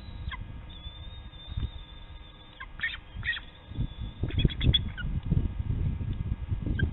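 Adult bald eagle giving short, high chirping calls: a couple near the middle, then a quick run of four or five notes, over a low background rumble.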